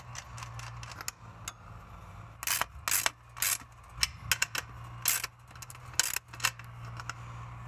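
Irregular sharp metallic clicks and clinks from a ratchet wrench and steel hardware as the latch is bolted onto a galvanized chain link gate frame.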